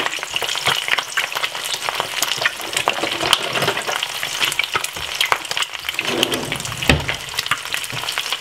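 Eggs frying in hot oil in a nonstick frying pan: steady sizzling full of fast crackling pops. One knock near the end.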